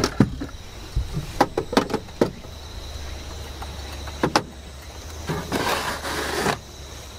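Gear being stowed on a wooden shelf: a handful of sharp knocks and clicks as a rice cooker and small items are pushed into place, then about a second of rustling as a cloth bag slides in near the end. A low steady hum runs underneath.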